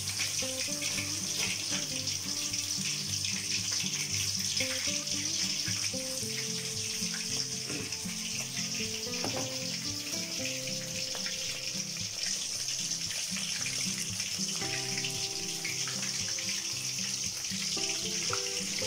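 Battered prawns deep-frying in hot oil in an aluminium wok: a steady bubbling hiss. Background music plays underneath.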